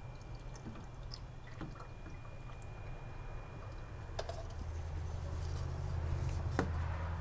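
Motor oil being poured from a glass measuring cup through a plastic funnel into an engine's oil filler, with three light clinks of the glass against the funnel, the last as the empty cup is set down in it to drain. A low hum underneath grows louder in the second half.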